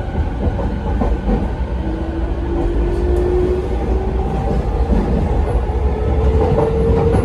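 Mitsubishi IGBT-VVVF inverter traction motors of a Rinkai Line 70-000 series train, heard from inside the car: a thin whine that climbs in pitch in steps as the train accelerates, over the steady rumble of the wheels on the rails.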